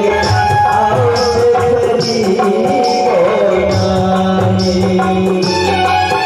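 Indian stage-drama music: a voice singing a wavering melody over drums, with a high percussive stroke about once a second.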